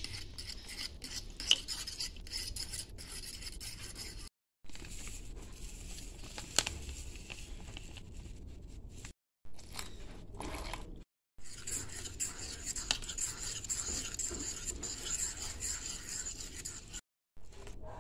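Metal fork stirring and beating egg-and-flour batter in a bowl, clinking and scraping against the bowl, with a couple of sharper clinks. The sound breaks off briefly several times.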